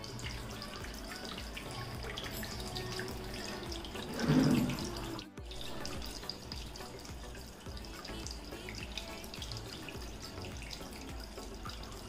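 Water from a small homemade tabletop waterfall fountain trickling and splashing steadily down its steps into the basin. About four seconds in there is a brief louder swell.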